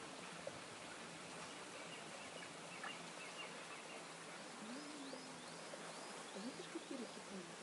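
A small songbird calling in the background: a run of about six short, high, quickly repeated chirps a little past the middle, with a few lower notes near the end, over a faint steady hiss of water trickling into a trout pool.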